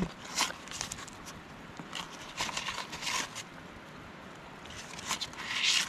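A knife cutting pats off a stick of butter through its paper wrapper, with the wrapper crinkling and rustling in several short bursts, the last one near the end the loudest.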